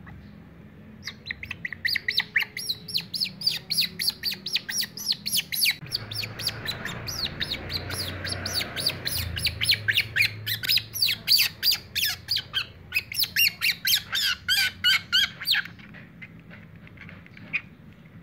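Baby otter pup giving rapid, high-pitched calls, about four or five a second, starting about a second in and stopping a couple of seconds before the end.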